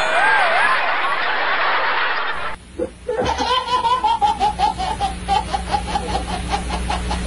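A loud rushing noise with a wavering tone that cuts off about two seconds in, then a baby laughing hard in quick repeated bursts, about four or five a second.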